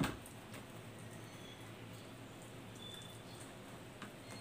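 Soft bread being torn apart by hand: faint crackling and rustling of the crust and crumb, with a short sharp click right at the start.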